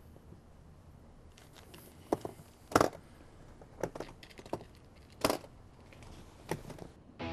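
Scattered sharp clicks and knocks, about six over a few seconds, the loudest about three and five seconds in, against a quiet room background.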